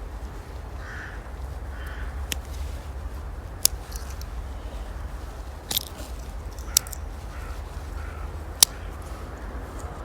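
Sharp metal clicks of a Victorinox Cadet Alox slip-joint pocket knife's blade and tools snapping into place, four of them a second or two apart, over a steady low hum.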